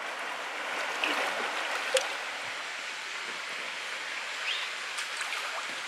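Steady rush of flowing stream water, with a single sharp click about two seconds in.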